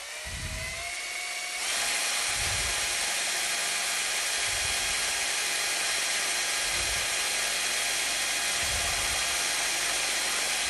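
Power drill spinning a homemade mixing paddle, a frother fitted with two strips of timber, in a plastic cup of acrylic paint and pouring medium. The motor whine rises as it speeds up, then about two seconds in jumps louder and runs steady at full speed.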